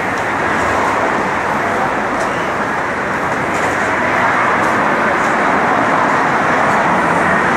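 Steady city street noise, a constant hum of road traffic, growing slightly louder about halfway through.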